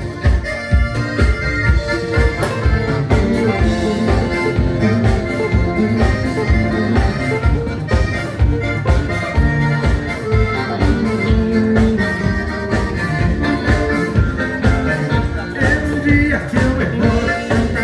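Live gaúcho dance band playing an instrumental passage: accordion over a steady bass-and-drum beat.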